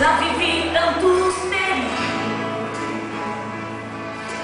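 A woman singing a gospel praise song into a microphone over a music accompaniment; her voice drops out about halfway through while the accompaniment holds steady notes.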